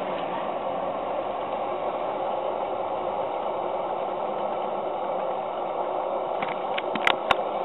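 Live-steam engine of a model sternwheel paddle steamer running and turning the stern paddle wheel through a 1.66:1 reduction transmission: a steady, even rushing run, with a few sharp clicks near the end.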